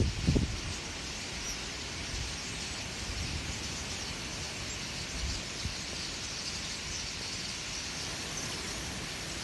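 A huge flock of common starlings chattering en masse, heard as a steady high hiss of countless overlapping calls. A short buffet of wind on the microphone at the very start.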